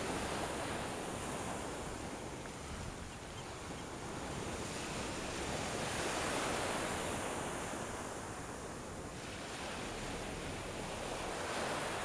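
Small surf waves washing up a sandy beach, a steady wash of noise that swells and ebbs as each wave comes in, with wind rumbling on the microphone.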